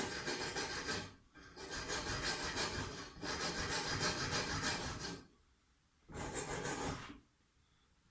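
Wire brush scrubbed fast back and forth over a fresh argon weld on a scooter's variator cover, cleaning it, in four bursts with short pauses between.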